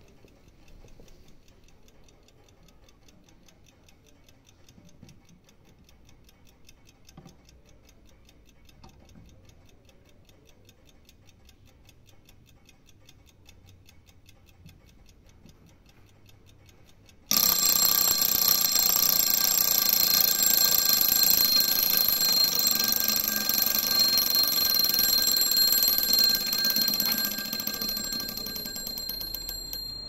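Antique French carriage clock ticking quickly and faintly, then about 17 seconds in its alarm goes off with a loud, continuous ringing. The ringing weakens over the last few seconds.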